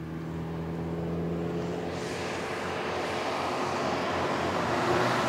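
A car approaching on a road, its engine a steady hum that grows gradually louder as it nears.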